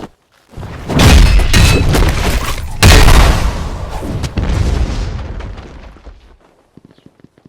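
A run of loud, deep booms, three main surges about half a second, one second and three seconds in, fading away to quiet over about six seconds.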